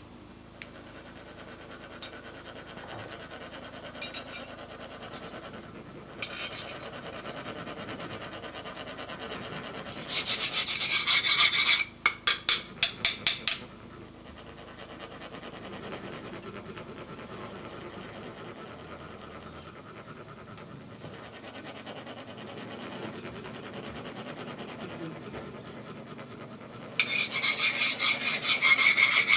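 Ridged metal sand funnel (chak-pur) being rasped with a metal scraper, which sets the coloured sand trickling out in a thin stream. Two spells of fast rasping, one about a third of the way in and one near the end, each breaking into separate strokes, with a few light scrapes and ticks between.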